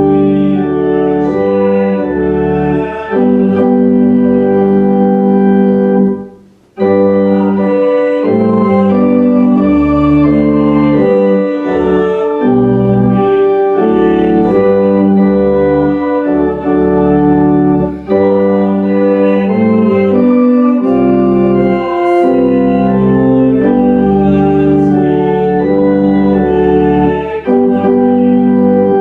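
Organ playing slow, sustained chords in a hymn-like progression, with a short break about six and a half seconds in.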